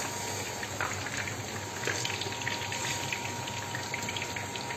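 Eggplant pieces frying in hot oil in a pan: a steady sizzle with many small scattered crackles, over a faint steady high tone.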